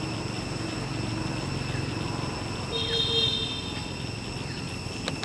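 Steady low rumble of a distant engine, with a steady high-pitched whine over it and a brief high squeal about three seconds in.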